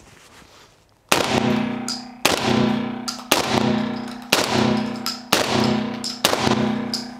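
Six shots from a Mossberg 940 JM Pro 12-gauge gas-operated semi-automatic shotgun loaded with birdshot, fired about one a second. Each shot is followed by a ringing echo off the range's concrete walls.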